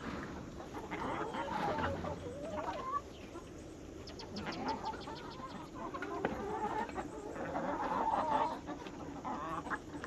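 Laying hens clucking and calling, with a short run of light, rapid clicks about four seconds in.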